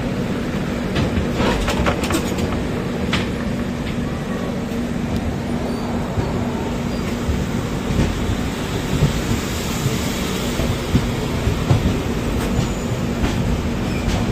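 Passenger coach of an express train pulling out of a station at low speed, heard at the open doorway: a steady rumble of wheels on rails with a low hum, and a few sharp clicks about one to three seconds in.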